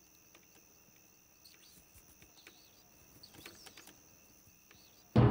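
Faint night ambience: a steady cricket-like insect trill with scattered small clicks and short chirps. Just before the end, a sudden loud burst of scary music cuts in.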